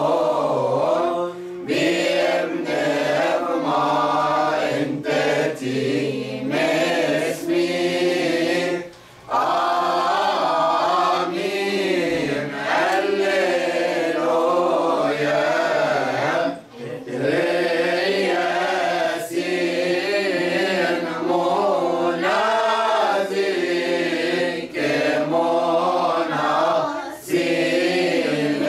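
A mixed choir of men and women chanting a hymn together, unaccompanied, with short breaks for breath twice along the way.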